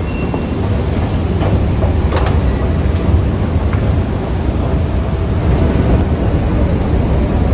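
Metro escalator running, a steady low rumble with a few light clicks.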